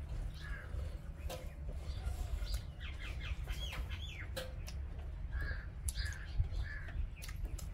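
Crows cawing in short calls several times, with a quick run of rising chirps from another bird in the middle, over a steady low rumble and scattered sharp clicks.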